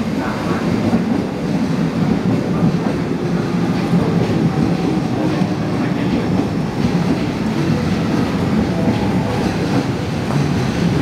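Electric commuter train at a busy station platform: a steady low rumble, with the bustle of passengers on the platform.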